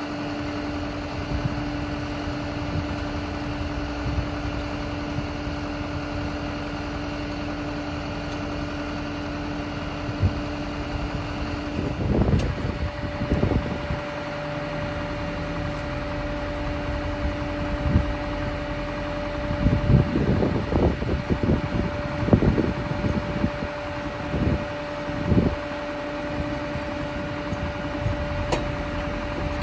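Flatbed tow truck's engine running at idle, a steady hum that steps up in pitch about twelve seconds in. Scattered low thumps come in two clusters, one about twelve seconds in and another from about twenty seconds in.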